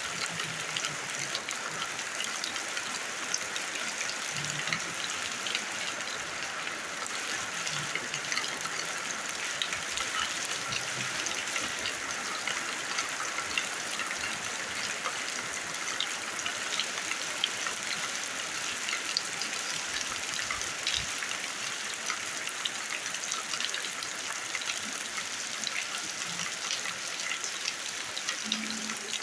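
Steady rain falling onto the ground: a continuous even hiss with many small drop taps scattered through it.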